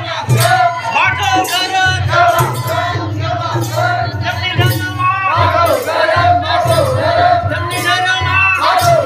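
Music: a voice singing a wavering melodic line over a steady low note, with percussion hits.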